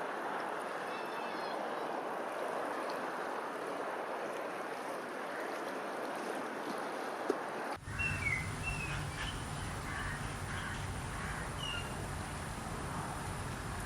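A steady rushing noise like running water. About eight seconds in it cuts abruptly to a low steady hum with a few short, high bird chirps.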